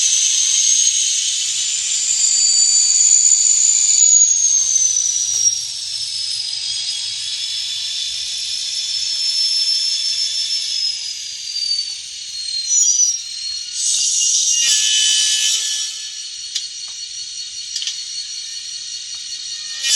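N scale model locomotive running, heard as a thin high-pitched whine that slowly rises and falls. A denser hiss sets in about 14 seconds in.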